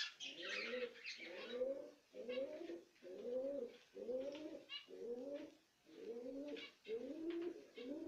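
Domestic pigeon cooing in a steady run of short coos, each rising and falling, about three every two seconds. Faint high chirps of small cage birds are heard above it now and then.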